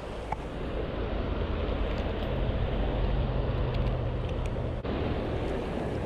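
River water rushing over rocks, with wind buffeting the microphone in a low rumble.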